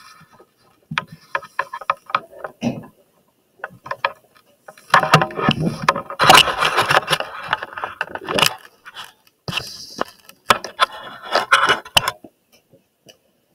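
Irregular clattering, scraping and clicking of equipment being handled and set up, heaviest in the middle and stopping about a second before the end.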